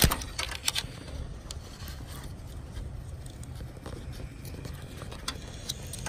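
Hands handling a wire and relay at a truck's under-hood fuse box: a sharp click at the very start, a few quick light clicks and rattles in the first second, then scattered faint ticks and scrapes.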